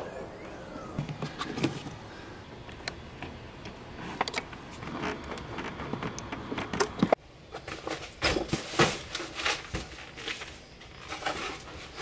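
Scattered clicks, knocks and rattles of hands working at a car battery in the engine bay, disconnecting the battery terminal. The handling gets busier and louder after about eight seconds.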